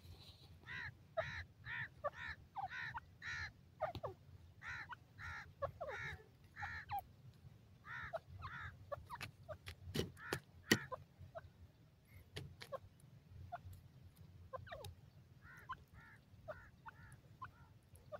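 Grey francolin giving quiet, short repeated call notes, about three a second, in runs broken by pauses, with a fainter run near the end. A few sharp clicks come about ten seconds in.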